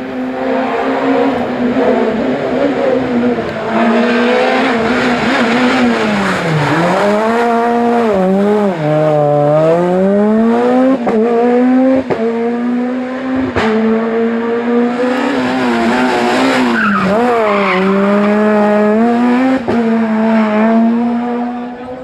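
Rally car engine held at high revs. Its pitch drops sharply and climbs back several times as the driver brakes, shifts gear and accelerates through the bends.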